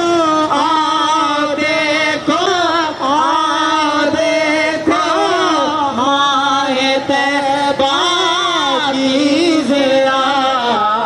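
A man reciting a naat, an Urdu devotional poem in praise of the Prophet, singing long drawn-out notes that wind up and down in pitch.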